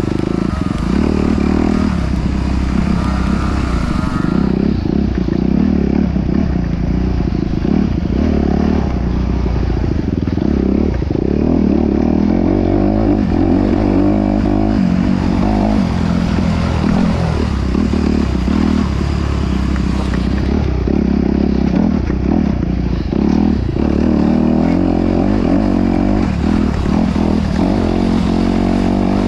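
Off-road vehicle's engine running steadily under way, at a fairly even pitch with no sharp revs.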